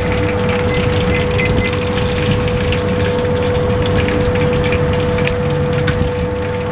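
Battered chicken deep-frying in a wok of hot oil, a dense sizzle with fine scattered crackles, over a steady machine hum that carries one constant tone.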